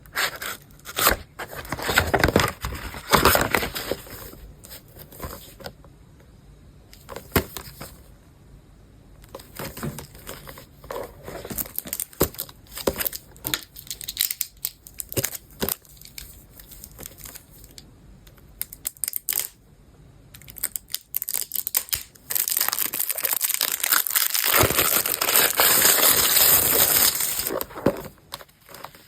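Book packaging being handled and torn open by hand: crinkling plastic wrap, taps and scrapes. About two-thirds of the way through comes a loud, continuous tearing and rustling of the wrap that lasts several seconds.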